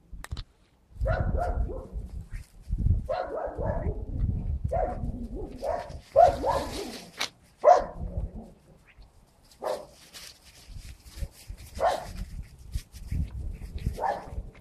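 Small dog barking in short, irregular bursts of one to three barks, over low rumbling noise on the microphone.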